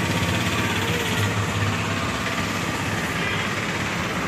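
Steady road traffic noise with a vehicle engine idling.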